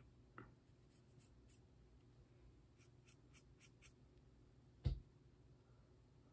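Faint scratching of a marker drawing short strokes on a tape mold of a hand, with one soft thump about five seconds in as the mold is handled.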